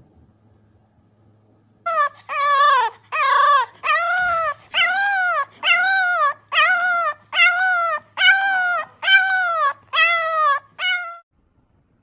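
A puppy howling: a run of about a dozen short, high-pitched yowls, each rising then falling in pitch, about one and a half a second, stopping suddenly.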